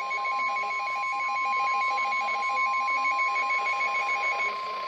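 Midland weather radio alert: a rapid beeping alarm, about five or six beeps a second, over the steady single-pitch NOAA Weather Radio warning alarm tone (1050 Hz). The beeping stops about four and a half seconds in and the steady tone carries on. Together they announce a severe thunderstorm warning.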